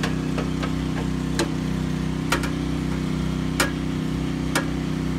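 Sharp metal clicks and taps, about eight spread through, as the metal cover of an electrical panel is handled and fitted back on, over a steady engine hum.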